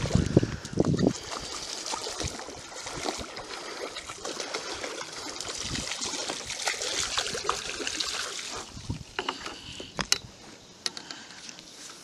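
Water splashing and trickling as a hooked turtle is worked at the surface, with a few muffled knocks in the first second and a few sharp clicks near the end.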